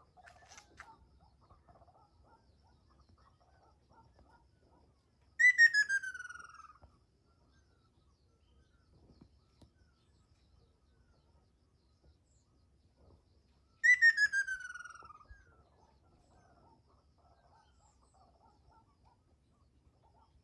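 Ryukyu ruddy kingfisher calling twice, about eight seconds apart. Each call is a rapid trill that slides down in pitch and fades out over about a second and a half.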